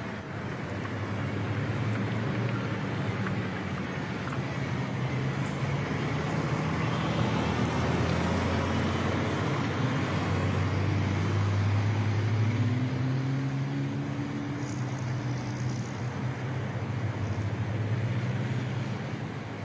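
Diesel engine of a double-decker bus running as the bus drives along the road, with a steady low engine note under road noise; the engine note rises for a few seconds past the middle.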